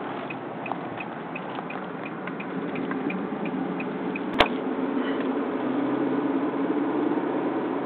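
Car turn-signal indicator ticking about three times a second, stopping about four seconds in, with a single sharp knock just after. Underneath is steady engine and road noise inside the car's cabin, which grows a little louder.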